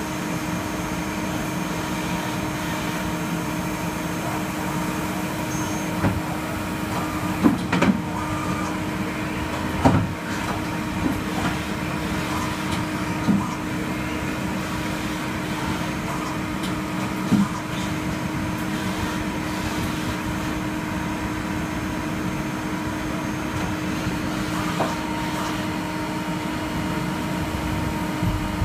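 DMG Gildemeister Twin 65 twin-spindle CNC lathe running: a steady machine hum with a constant higher whine, broken by a handful of short sharp clunks and clicks.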